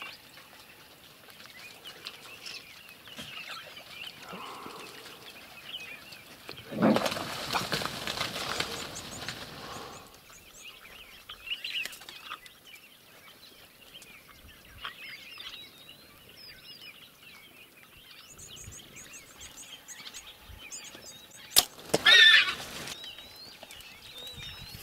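Waterhole ambience with small birds chirping, a rustling, rushing noise for about three seconds some seven seconds in, and near the end a sharp click followed by a loud, harsh squeal as warthogs chase each other.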